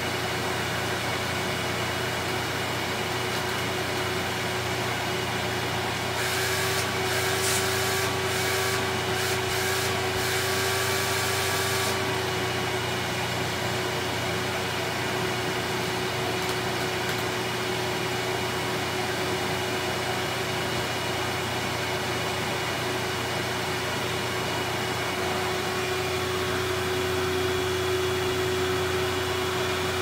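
Sanitaire SC5815A commercial wide-track upright vacuum cleaner running steadily on carpet: a constant motor whine over a low hum. From about six to twelve seconds in, an extra hiss of rushing air joins it.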